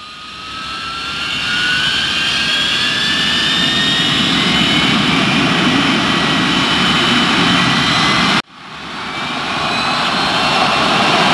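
Jet engine sound effect for an animated flying gunship: a loud rush with a whine that slowly rises in pitch, building over the first two seconds. It cuts off abruptly about eight seconds in, then swells straight back up with a fresh rising whine.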